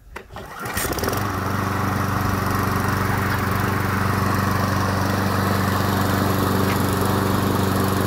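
Briggs & Stratton four-stroke single-cylinder engine on a push lawn mower, pull-started and catching on the first pull, then running steadily from about a second in. This is the mower's first start after a new spark plug and carburettor cleaner brought it back from not starting.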